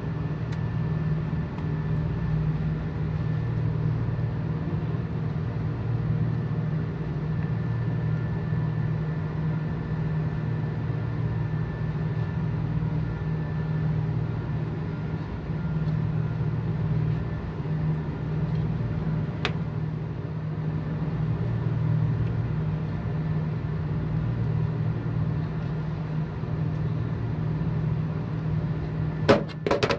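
Steady low machine hum of running HVAC equipment, with a faint steady tone above it. A sharp click comes a little past halfway and a few more clicks come near the end.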